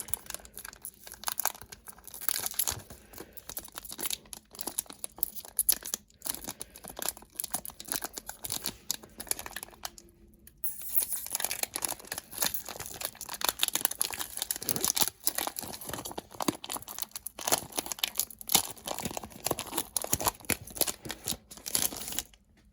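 A trading-card booster pack being torn open, its foil wrapper crinkling and crackling, with a short lull about ten seconds in.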